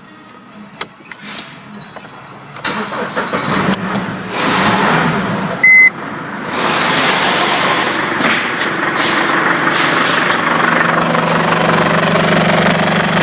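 Mercedes OM640 2.0 CDI four-cylinder diesel being started: a few clicks, then cranking that catches into running. A short, loud electronic beep comes about halfway through, and the engine then settles into a steady idle.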